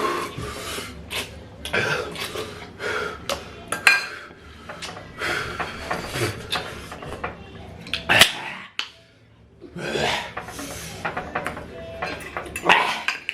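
Forks clinking and scraping against dishes while noodles are eaten quickly, in many short irregular clicks with one sharper clink a little past the middle.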